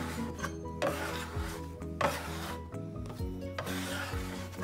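A bench scraper scraping across a wooden butcher-block table in several short strokes as it is pushed under a ball of dough to tighten and shape it, over background music.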